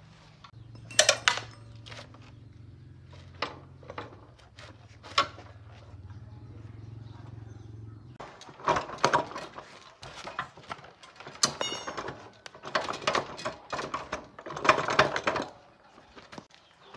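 Metal tools and parts clinking and scraping in sharp, irregular knocks. A steady low hum runs under the first eight seconds, then the clattering grows denser and busier.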